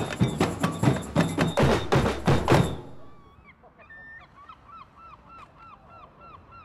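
A percussion band playing a fast drum rhythm, cut off abruptly a little under three seconds in. Then, more quietly, a bird calling in a rapid series of short rising-and-falling honking notes, about three a second.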